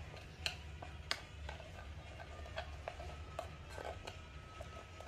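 Faint, scattered clicks and taps of kitchen utensils being handled, over a low steady hum.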